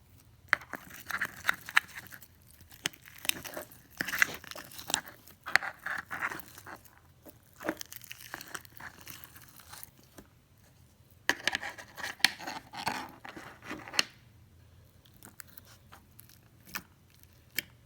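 Hands squeezing, stretching and poking soft, freshly made slime, giving irregular sticky clicks and short crackles in bursts, busiest at the start and again about two-thirds through.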